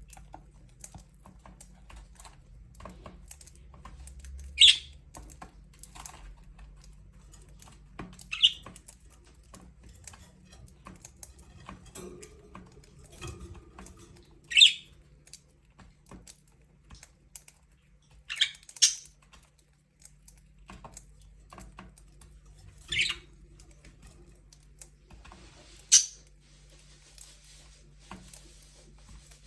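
Budgerigars calling: a short, sharp, high chirp every few seconds, about seven in all, two of them in quick succession, over faint scattered ticking and soft chatter.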